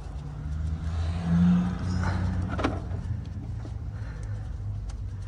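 A motor vehicle engine running at low revs: a steady low hum that swells briefly about a second and a half in, with a couple of faint clicks.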